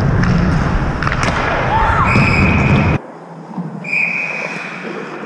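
A referee's whistle blown twice in steady high blasts, about a second each, one a little after two seconds in and the other about four seconds in. Low wind rumble on the camera microphone fills the first part and cuts off abruptly about three seconds in.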